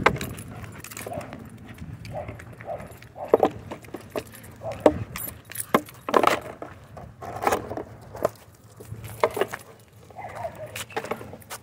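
Small metal objects jingling irregularly, with scattered clicks and knocks.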